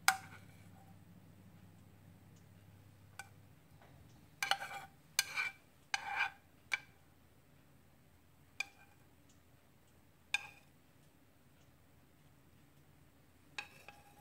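A metal utensil clinking and scraping against a frying pan and a ceramic plate as shrimp pasta sauce is scraped out of the pan onto spaghetti: a sharp clink at the start, a quick run of scrapes and clinks about four to seven seconds in, then a few single clinks.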